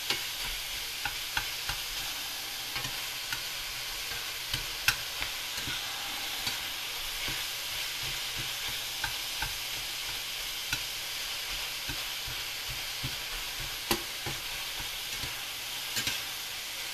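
Ground Italian sausage frying in a skillet with a steady sizzle, a spatula scraping and clicking against the pan now and then as it is stirred.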